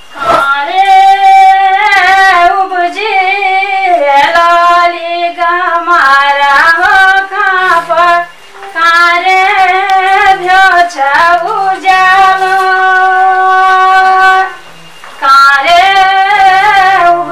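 A woman singing solo in the Uttarakhand pahadi style, with long held notes and wavering ornaments. She breaks off briefly twice, once about halfway through and once near the end.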